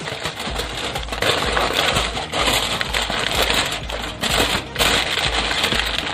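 Aluminium foil crinkling and crackling as it is folded and pressed down by hand around a fish, continuous with two brief pauses.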